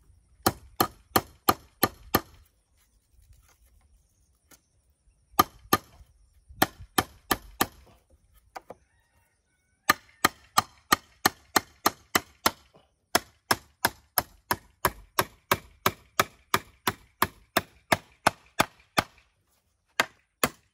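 Steel hammer driving nails into a wooden rung of a pole ladder: runs of sharp strikes, about three a second, with a few short pauses between runs.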